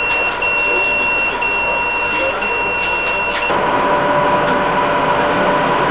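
Electronic beeper sounding four long, high-pitched beeps, about one a second, over a steady background hubbub of a busy station; the beeping stops about three and a half seconds in, leaving a steady hum.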